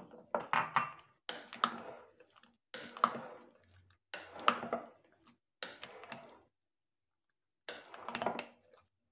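White plastic spoon stirring through a creamy salad in a glass bowl: wet scraping strokes with clinks against the glass, about one every second or so, pausing briefly near the end.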